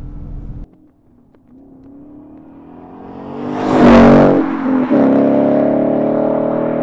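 2015–2017 Ford Mustang GT's 5.0 L V8 with a Borla Touring cat-back exhaust, a mild growl, accelerating hard from a standing start. The engine note rises to its loudest about four seconds in as the car passes, then a gear change brings a short dip and drop in pitch before it pulls on, slowly fading.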